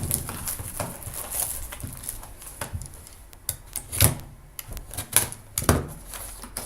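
Trading-card boxes being handled on a table: scattered light knocks and clicks, the loudest about four seconds in and another pair near the end.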